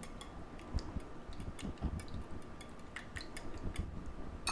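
A utensil stirring beaten eggs and shredded mozzarella in a bowl, making faint, irregular clicks against the bowl a few times a second.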